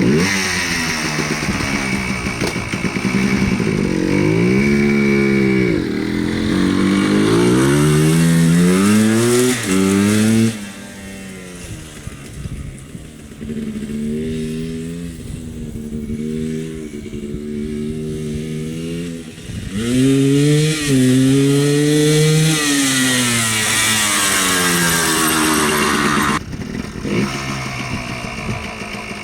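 Yamaha Blaster ATV's 195cc single-cylinder two-stroke engine being ridden, its pitch rising and falling repeatedly as the throttle is opened and let off. It grows quieter for a stretch in the middle, then loud again.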